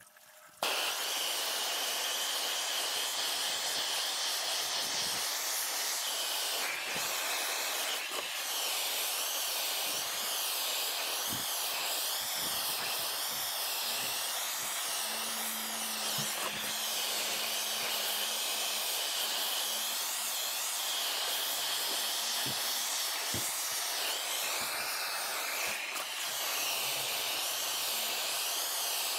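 Handheld blowtorch on a MAP-X gas cylinder burning with a steady hiss that starts suddenly about half a second in, its flame scorching pine crate slats.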